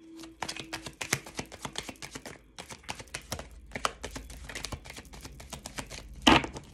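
A tarot deck being shuffled by hand: a rapid, uneven patter of card-edge clicks and slaps, with one louder knock near the end.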